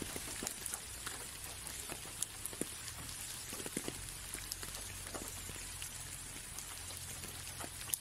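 Light rain on a window pane: many small irregular drop ticks over a soft, steady hiss.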